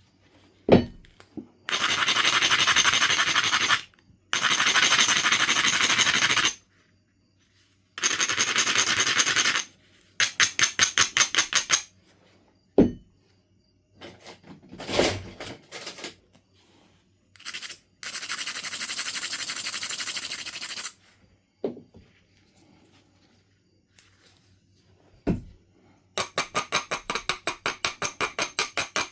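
Knife River Flint being worked into a point. Long gritty rubs and runs of quick back-and-forth strokes, about six a second, come from abrading and grinding the edge and platforms. About five single sharp strikes ring out between them as flakes are knocked off.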